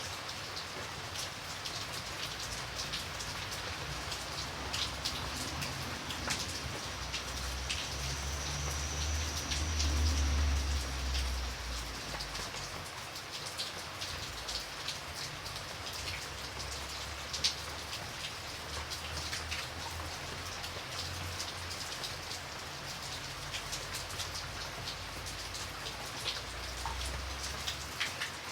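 Steady rain falling, with individual drops pattering and clicking over the rush. A low rumble swells up and fades away around ten seconds in.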